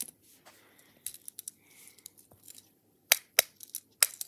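Fidget toys being handled: a few light clicks, then three sharp snaps in the last second and a half.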